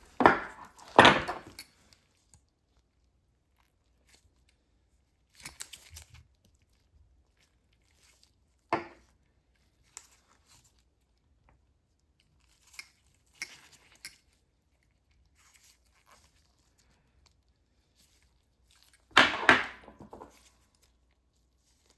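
Scattered clicks and short scrapes of pliers working 0.7 mm stainless steel orthodontic wire as it is bent and straightened, with quiet gaps between; one sharp click about nine seconds in, and the loudest scraping a few seconds before the end.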